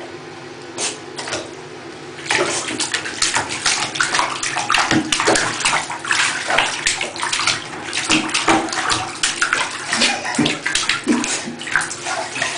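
Water splashing in a bathtub around a spaniel puppy standing in shallow water. It is quiet at first, then the splashing starts about two seconds in and goes on irregularly.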